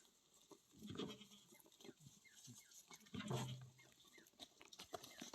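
Livestock bleating, twice: a call about a second in and a longer, deeper one a little after three seconds.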